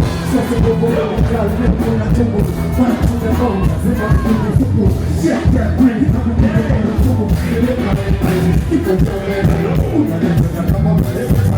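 Loud music with a heavy, steady beat, with some singing over it.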